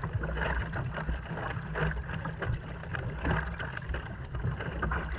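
Kayak paddle blades splashing into the water with fast, hard strokes, over a steady rumble of wind on the microphone.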